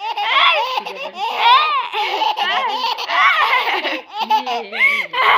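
High-pitched, childlike laughter in a run of bursts about a second long, the pitch sweeping up and down, with short breaths between bursts.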